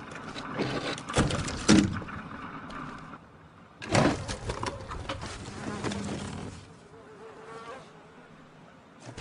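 Film sound effects: cloth rustling and thrashing with a buzzing flutter, and sharp knocks about a second in and again near four seconds.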